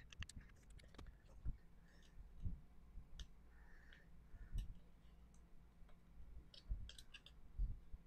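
Faint, irregular light clicks and taps of small hand tools against the plastic shell and circuit board of a trackball mouse being taken apart, with a few soft low knocks.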